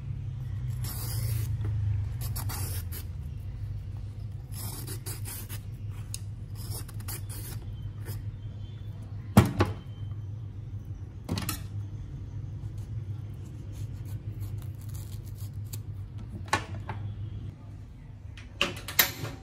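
Hand vegetable peeler scraping the skin off a luffa gourd in short strokes, over a steady low hum. A few sharp knocks, the loudest about nine seconds in.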